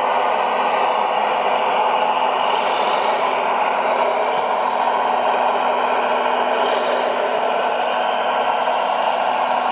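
Scale RC Liebherr 970 hydraulic excavator running under load, its hydraulic pump and motor giving a steady whir with a faint low hum.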